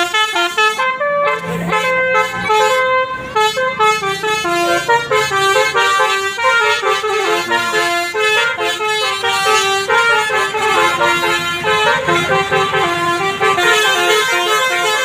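A bus's Basuri telolet multi-tone horn playing a fast melody, its notes stepping up and down in quick succession, over the low hum of the bus engine.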